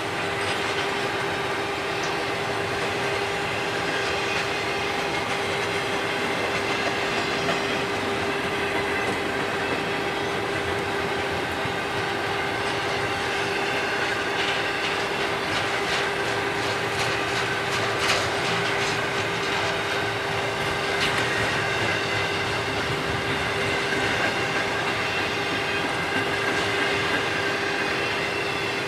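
Union Pacific intermodal freight train's double-stack well cars rolling past: a steady rumble and clatter of steel wheels on rail, with a steady tone running through it. Sharper metallic clicks come through in the middle stretch.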